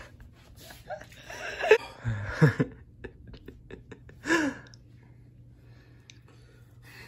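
A young man groaning and gasping with his mouth full of dry cheese: three short strained vocal sounds, falling in pitch, within the first four and a half seconds, the middle one loudest.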